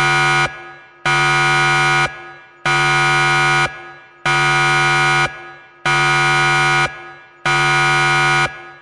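Countdown timer's alarm going off at zero: a loud electronic buzzer in repeated blasts about a second long, one every second and a half or so, six in all.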